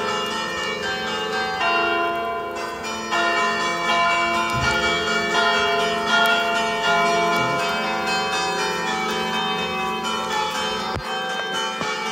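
Cuzzago's five church bells, the largest in F3, ringing together in a continuous overlapping peal, new strikes coming every fraction of a second over a wash of ringing tones. The peal signals the start of mass.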